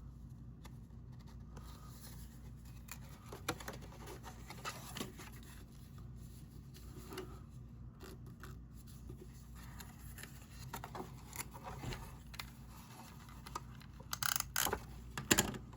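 Paper pieces and tape being handled while tabs are taped and folded down: light scattered rustles, scrapes and clicks, with a brief burst of louder, sharper scratchy sounds near the end.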